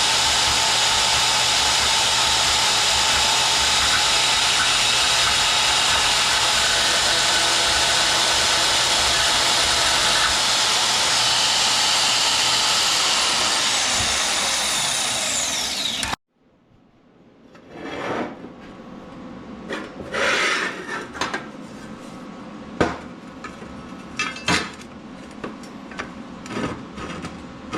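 A power tool runs loud and steady for about sixteen seconds, then cuts off suddenly. After it stops come scattered knocks and clatter of handling.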